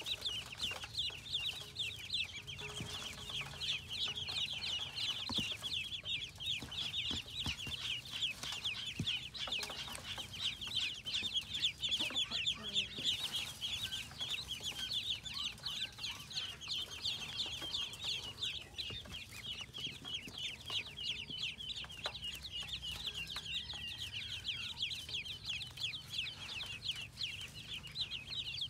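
A brood of ducklings peeping together, many high, short chirps overlapping in a continuous chorus.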